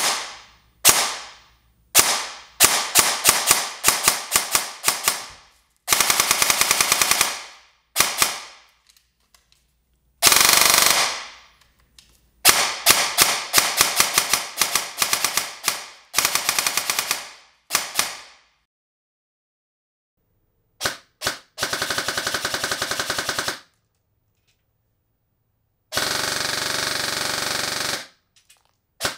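VFC MCX Rattler airsoft electric gun, its gearbox built with stock 18:1 gears, a high-torque motor and a Perun Hybrid mosfet, cycling: strings of quick single shots and several full-auto bursts of one to two seconds each, with pauses between them.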